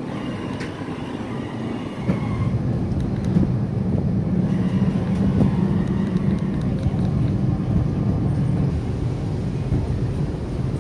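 Wind buffeting the microphone, a steady low rumble that grows louder about two seconds in.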